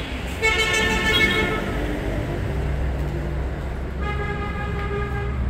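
Vehicle horns honking twice in street traffic, a longer steady blast and then a shorter one, over a low, steady traffic rumble.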